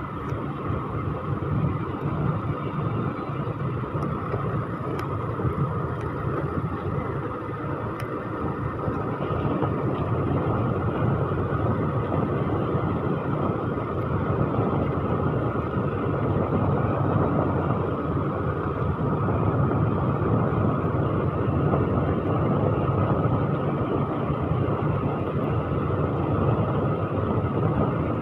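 Steady rush of wind and road noise from a moving scooter, with its engine running underneath, growing a little louder after about ten seconds.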